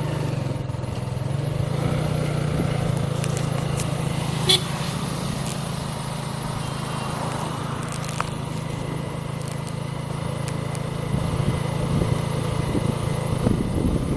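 An engine running steadily at an even speed, with a short sharp click about four and a half seconds in.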